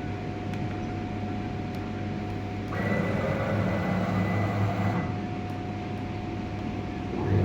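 CNC router machine running steadily with a low hum and a steady tone; about three seconds in it grows louder with a high whine for about two seconds, then settles back.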